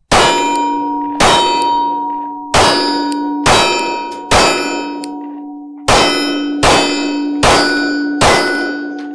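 Nine 9mm pistol rounds from a Glock 43X striking a steel target plate, each hit sharp and then ringing on in a long fading ring, about a second apart. The string runs without a stoppage on the cheap Monarch ammo.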